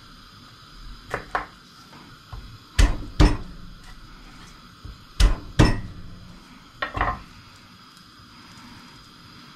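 Chef's knife knocking on a wooden cutting board as garlic cloves are cut: sharp knocks, mostly in quick pairs, four pairs in all, with the loudest in the middle.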